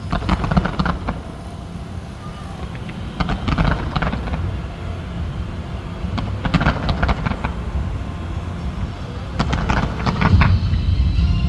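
Fireworks going off in clusters of crackling pops, a burst about every three seconds, over a steady low rumble.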